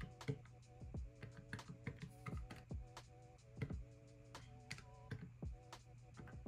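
Plastic keys of a desk calculator pressed in quick, irregular taps, several a second, as a column of figures is added up.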